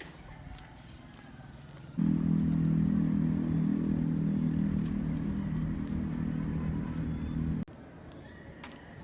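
A motor vehicle engine running with a steady low hum that starts abruptly about two seconds in and cuts off suddenly near the end, over a quiet outdoor background.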